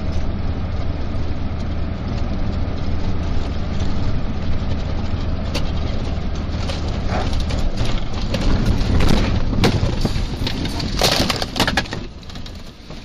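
Vehicle crash: a steady low rumble from the vehicle, then a run of crunching, cracking impacts from about eight to twelve seconds in.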